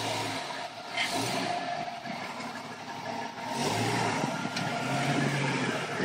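Jeep Cherokee XJ's engine running at low revs as it crawls up a slickrock ledge, revving up and getting louder about three and a half seconds in.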